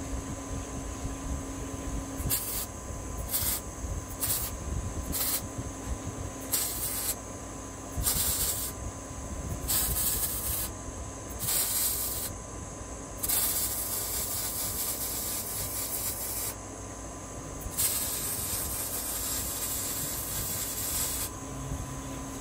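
MIG welding arc on steel, crackling and hissing in bursts. It starts with four short tack welds about a second apart, then runs of about a second each, then two longer beads of several seconds each.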